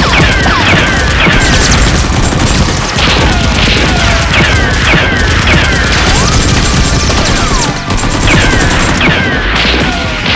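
Rapid bursts of gunfire sound effects with many short falling whistles, over a steady low background music beat.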